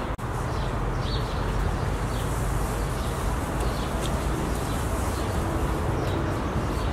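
Outdoor ambience: a steady low rumble with birds chirping now and then.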